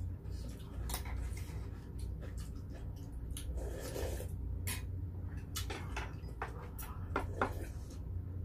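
Mealtime eating sounds: spoons and chopsticks clicking and clinking against heavy earthenware soup pots and dishes, with a short sip or slurp of beef rib soup broth about four seconds in and a few louder clinks near the end, over a steady low hum.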